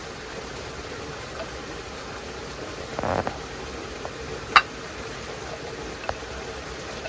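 Steady rush of running water, with a short scraping burst about three seconds in, a sharp knock about four and a half seconds in and a smaller one about six seconds in.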